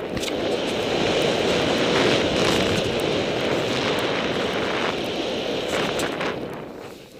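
A snowboard sliding fast over packed snow, with a steady rushing hiss and wind on the camera microphone, and a few knocks as the board bumps over the rollers. The rush fades near the end as the rider slows.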